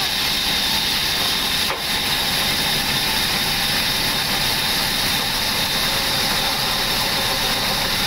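Large sawmill machinery running steadily, a constant hiss with an even high-pitched whine.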